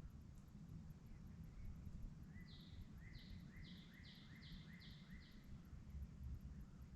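A single songbird singing a series of about seven repeated notes, about two a second, starting a couple of seconds in and stopping a little past halfway. There is a faint low rumble underneath.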